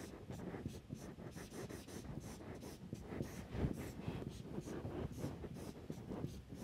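Marker pen writing on a whiteboard: a quick run of short scratching strokes, several a second.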